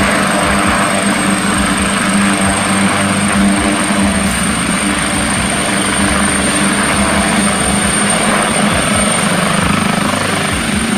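Air-ambulance helicopter lifting off from a helipad: steady, loud rotor and turbine noise with a constant high-pitched turbine whine.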